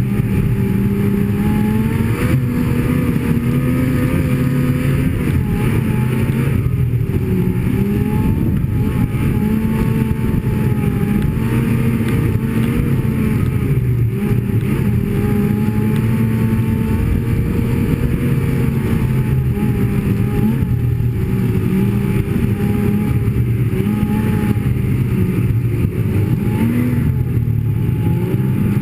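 Snowmobile engine running at a steady cruising speed, its pitch wavering a little with the throttle.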